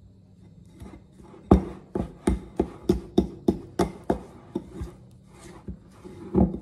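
A fork mashing softened butter, brown sugar and cinnamon in a bowl, knocking and scraping against the bowl about three times a second. The strokes start about a second and a half in and thin out after about five seconds, with one louder knock near the end.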